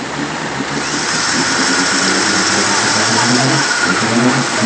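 4x4 SUV engines running hard in a fast, muddy river, growing louder, with water churning and spraying off the spinning wheels over the rush of the flood.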